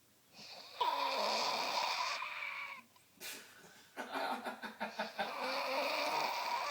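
A person snoring: two long snores, each about two and a half seconds long, with a brief sharp sound between them.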